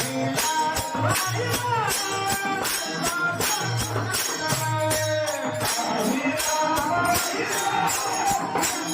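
Devotional music: a quick, steady beat of jingling hand percussion, about four to five strokes a second, under a bending melody.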